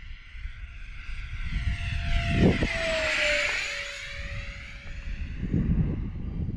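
Radio-controlled model Airbus A320 jet making a pass overhead: its engine whine swells to a peak about three seconds in and drops slightly in pitch as it goes by, then fades. A low wind rumble runs underneath.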